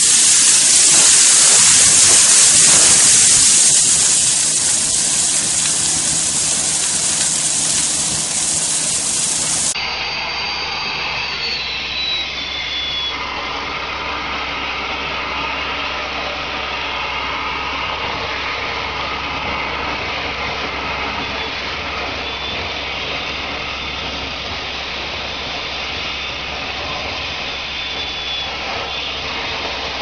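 Industrial vacuum hose sucking up sand and gravel: a loud, steady rushing hiss with scattered clicks of material. About ten seconds in it cuts to a quieter, steady machine drone with a faint whine as a metal suction pipe draws water and gravel slurry out of a sump.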